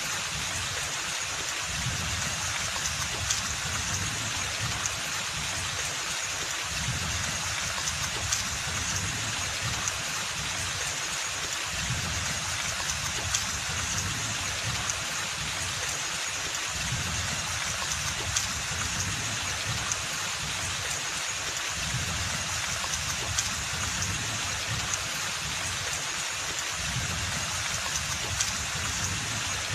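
Steady rain falling in a forest: an even hiss with many scattered drop taps.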